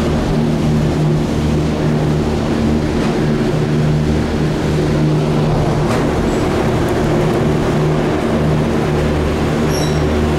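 Gondola lift running, heard on the ride: a steady, loud mechanical hum with a few faint clicks.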